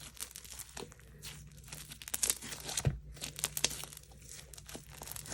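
Sticky slime being mixed and pulled by hand, a steady stream of small crackling pops and clicks as it sticks and tears apart, with a soft thump about three seconds in.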